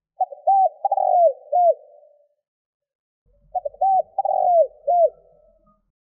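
Spotted dove cooing: two phrases, each a quick run of short hooked coo notes that trails off into a softer drawn-out note.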